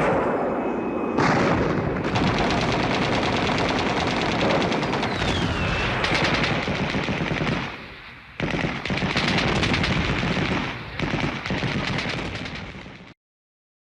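War sound effect of sustained, rapid machine-gun fire. The fire eases briefly about eight seconds in, then resumes and cuts off suddenly near the end.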